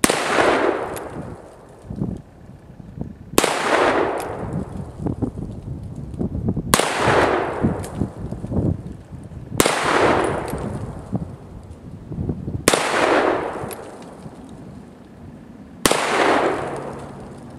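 Six shots from a Ruger Security Six .357 Magnum revolver, roughly three seconds apart, each a sharp crack followed by a long echoing tail.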